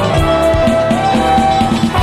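Instrumental break of a pop song: drums and bass under a held lead melody note that steps up in pitch about a second in.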